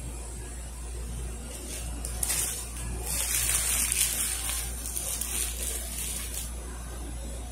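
Paper food wrapper crinkling and rustling as it is handled and folded, loudest from about two seconds in to near the end, over a steady low hum.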